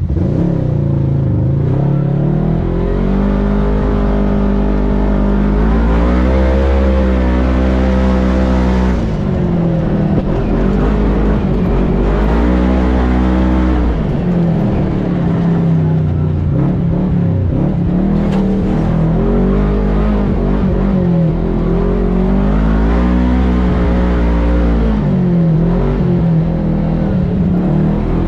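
Kawasaki Teryx KRX 1000 side-by-side's parallel-twin engine pulling under throttle, its pitch rising and falling as the driver accelerates and eases off along a dirt trail, heard from the driver's seat.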